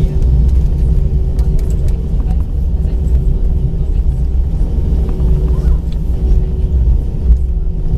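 Cabin noise inside an Airbus A319 rolling on the ground: a steady low rumble from the jet engines and the wheels on the pavement, with a faint steady hum and a few small rattles.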